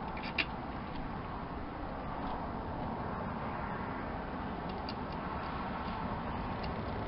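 A few light clicks and taps of small hardware being handled while wiring a winch, the sharpest about half a second in, over a steady background hiss.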